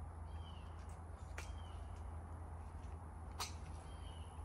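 Quiet outdoor background: faint short bird chirps now and then over a low rumble, with two sharp clicks, about a second and a half in and again two seconds later.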